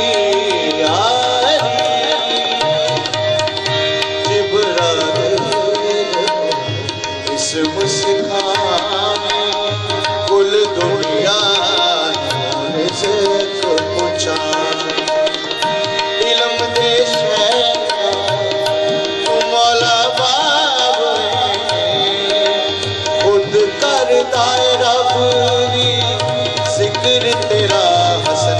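A devotional manqabat in qawwali style: two harmoniums hold steady chords and a tabla pair plays a dense driving rhythm beneath a singer's gliding, ornamented melodic lines.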